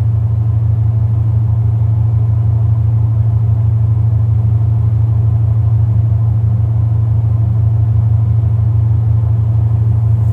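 A ship's engine running steadily, a loud, unchanging low hum.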